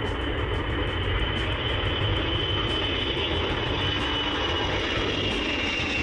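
Ilyushin Il-96 four-engine jetliner at takeoff thrust as it lifts off and climbs away: a steady jet engine noise with a high whine that slowly falls in pitch in the second half.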